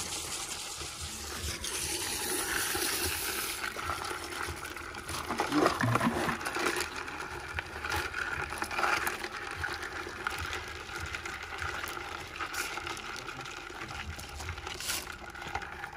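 Water pouring and splashing while live Jamaican black crabs are washed, with scattered light knocks throughout.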